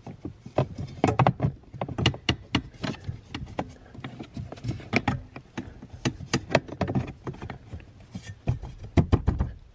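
Irregular clicks, knocks and scrapes, several a second, as a new aluminium heater core is handled and pushed up into its plastic housing under the dashboard, bumping against the metal heater pipes.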